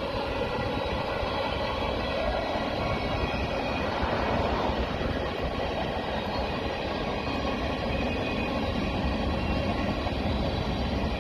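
CN freight train's cars rolling past, a steady rumble of wheels on the rails.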